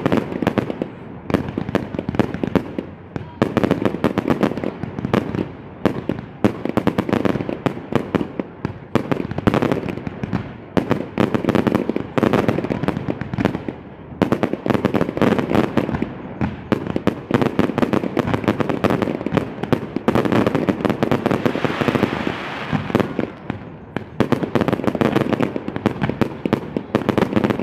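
Aerial fireworks display: a dense, continuous barrage of shell bursts and crackling stars going off, swelling and easing in waves every few seconds.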